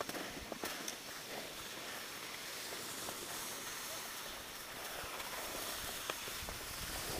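Skis sliding over groomed snow with a steady hiss, with a few short clicks near the start and once more about six seconds in.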